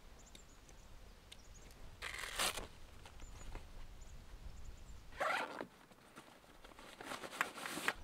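A zip on a soft motorcycle luggage bag being pulled open in three short rasping strokes, about 2, 5 and 7 seconds in.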